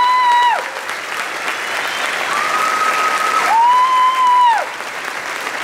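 Audience applauding a curtain call, with high, shrill held cheers over the clapping. Three of them, one ending about half a second in and two more near the middle, each falling in pitch as it dies away.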